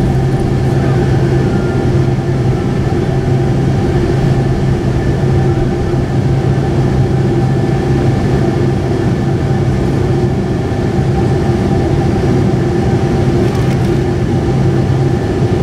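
Cabin noise inside a Boeing 747-8i taxiing after landing: a steady drone of the GE GEnx-2B turbofan engines at idle, with a constant low hum and a few higher steady tones.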